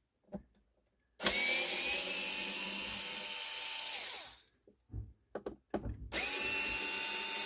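Cordless electric screwdriver backing screws out of a turntable's bottom panel: two runs of about three seconds each, the motor whine rising quickly to a steady pitch and winding down. Small clicks of handling between the runs; the second run starts about six seconds in.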